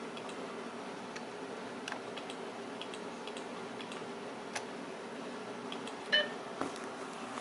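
Scattered light clicks, like a computer mouse button being clicked, over a steady low background hum. About six seconds in there is a brief, louder pitched chirp.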